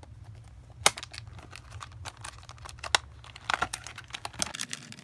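Plastic phone-case packaging handled and opened: crinkling and rustling with scattered clicks, two sharp clicks about a second in and just before three seconds, and a flurry of crinkling near the end.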